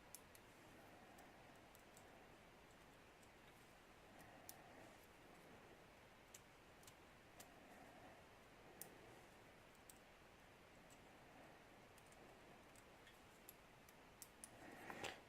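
Faint, scattered clicks of a Master Lock combination padlock's number wheels being turned one at a time, with tension held on the shackle, while each number is felt for a gate. The clicks come irregularly, a few seconds apart, over near silence.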